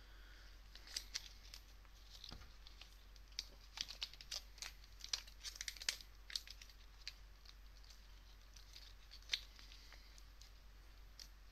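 Hand-held circuit board and its battery lead being handled close up: scattered light clicks and rustles, thickest in the first two-thirds, with a last click later on.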